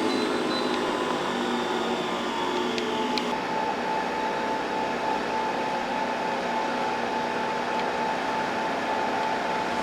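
Steady mechanical whirring hiss. A high tone comes in about three seconds in and holds.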